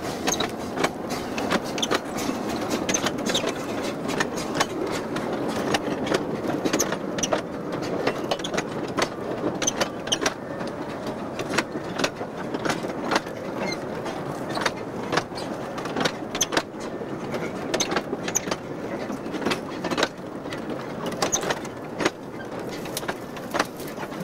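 Narrow-gauge log wagons rattling and clanking on the move, with a steady rumble of wheels on rail and many irregular sharp knocks and clicks from the wagons and track.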